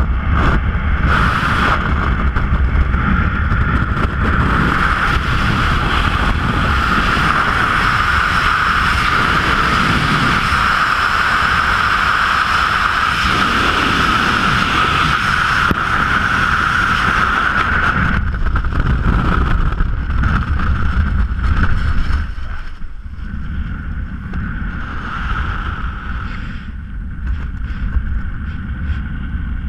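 Freefall wind rushing over a head-mounted camera's microphone, a loud, steady roar. A little past twenty seconds in it drops away to a lighter, gusty wind noise once the parachute is open and the jumper is flying under canopy.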